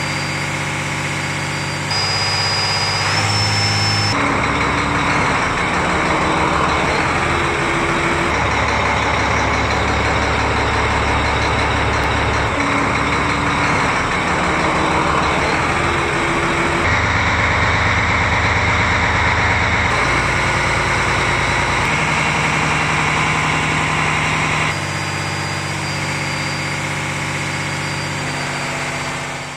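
Weichai marine diesel engine running steadily at low speed, heard close up. The sound shifts abruptly every few seconds, and in some stretches a faint high whine rides over the engine.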